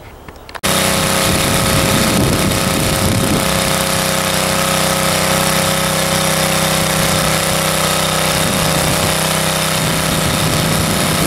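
Rear-tine rototiller's small gasoline engine running steadily under load as its tines churn through garden soil. It starts abruptly about half a second in.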